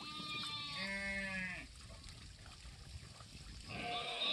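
A flock of livestock bleating: overlapping calls at the start, a longer bleat about a second in that falls in pitch at its end, and another call starting near the end.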